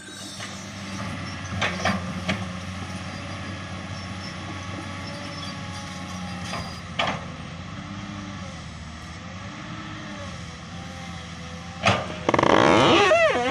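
Komatsu PC200 excavator's diesel engine running steadily, with a few sharp knocks. Near the end a loud pitched sound waves up and down for about a second.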